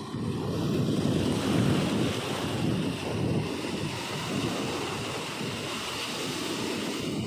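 Small sea waves breaking and washing up the sand, a steady surf rush that is a little louder in the first two seconds, with wind buffeting the microphone.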